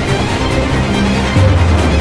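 Background soundtrack music of held notes, with a deep low note coming in about a second and a half in.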